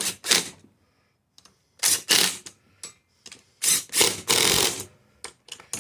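Ratchet wrench clicking in three or four short runs, tightening the bolts that clamp the two halves of a split snowblower rim together.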